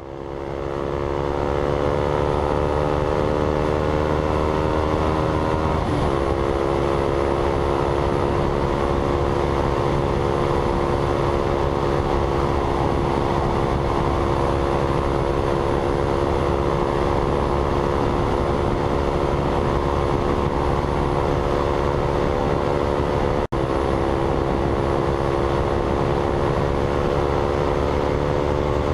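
A motorcycle engine running steadily under way, its pitch creeping slowly upward, with two abrupt breaks where the note jumps.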